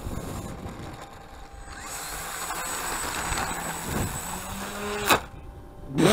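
Onboard sound of an RC model plane running off into dry grass: a rushing scrape as it slides through the grass, a knock about four seconds in as it noses over, a brief low hum, then a sharp loud crack about a second later.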